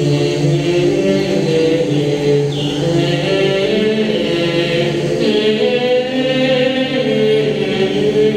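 Choral chant music with long, held, layered voices, and a couple of short falling high sweeps over it.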